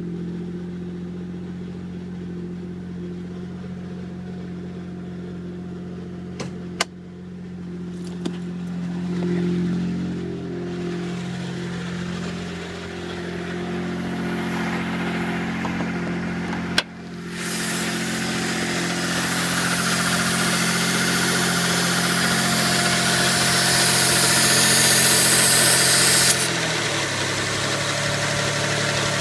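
1992 Mitsubishi GTO's twin-turbo 3.0 L V6 idling steadily, with a few sharp clicks. A hiss builds up in the second half and stops suddenly about three seconds before the end, where the idle settles slightly lower; the engine has a vacuum leak and lifter tick.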